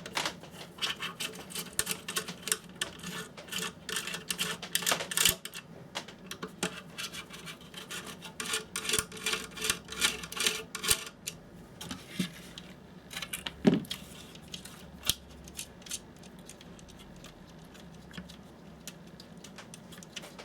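Parts of a dehumidifier being handled during disassembly: rapid clicking and rattling for the first ten seconds or so, then sparser clicks with a single knock about fourteen seconds in.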